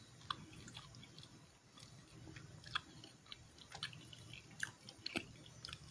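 Faint, irregular mouth clicks and lip smacks right at a phone microphone, over quiet room tone.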